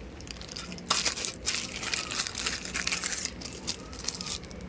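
Crinkling and crackling of packaging being handled, with irregular light ticks as the toy pop-pop boats are unpacked.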